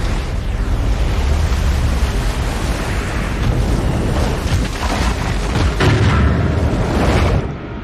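Film sound effect of a giant flood wave: a loud, continuous deep rumble and rushing of water, building to heavier crashing surges in the last few seconds before it cuts off suddenly just before the end.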